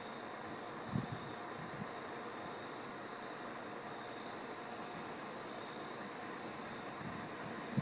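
A cricket chirping steadily, about three short high-pitched chirps a second, over faint background noise.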